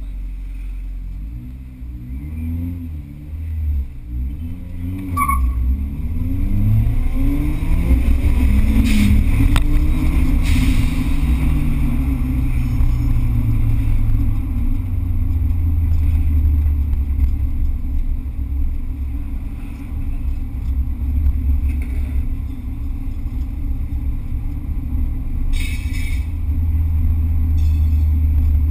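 Car engine heard from inside the cabin, revving up and down several times in the first few seconds, then climbing in pitch as the car accelerates, then running steadily at cruising revs.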